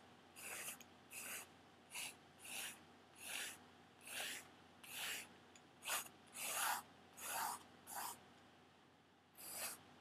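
Graphite pencil stroking across a paper drawing pad, sketching in hair: about a dozen short strokes, roughly one and a half a second, with a brief pause near the end.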